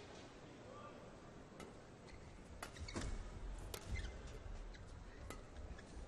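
Badminton rally: sharp strikes of rackets on a feather shuttlecock, one every second or so from a couple of seconds in, with small squeaks from court shoes on the floor.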